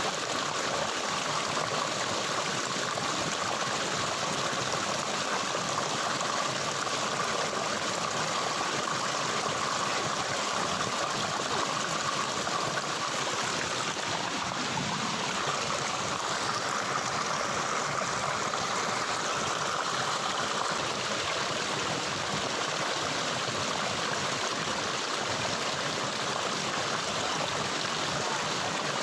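Running water of a stream, flowing steadily in an even rush.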